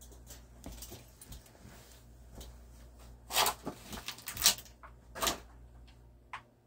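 Small clicks and scrapes from handling a 1/64-scale diecast flatbed tow truck as its bed is slid back and tilted, with the loudest clicks coming close together in the middle and one more near the end, over a faint low hum.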